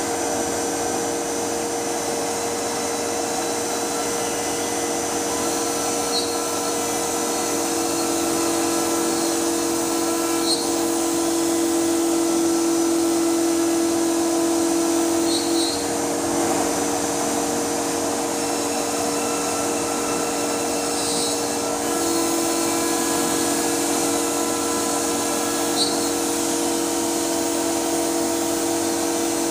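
Castaly PRO 510 CNC router running: a steady motor whine over a hiss, growing louder from about a third of the way in, easing off around the middle, and louder again over the last quarter.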